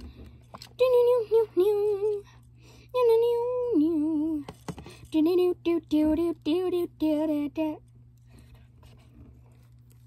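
A child singing a short wordless tune in held notes that step up and down, stopping about eight seconds in, followed by faint rustling.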